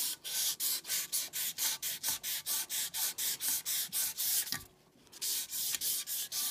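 800-grit wet/dry sandpaper rubbed back and forth on the aluminum body of a model passenger car, wet with soapy water, to take out deep scratches. Quick, even, hissing strokes, about three or four a second, with a brief pause near the end.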